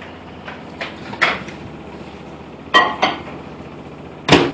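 A few knocks and clinks of a dish being handled and set into a microwave oven, then the microwave door shutting with a sharp, loud click near the end.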